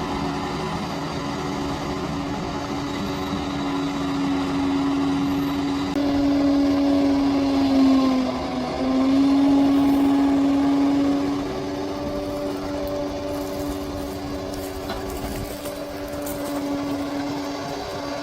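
A bulldozer's diesel engine runs steadily under load. About eight seconds in, its note sags briefly and then picks back up.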